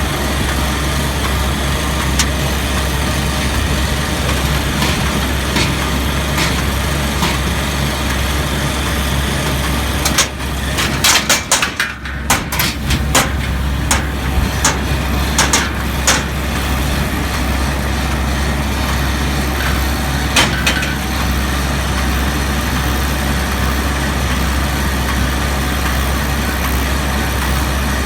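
International 844S tractor running steadily under load while pulling an IH 435 square baler, a constant engine drone with a deep hum. About ten to sixteen seconds in comes a run of sharp, irregular clacks, with one more a few seconds later.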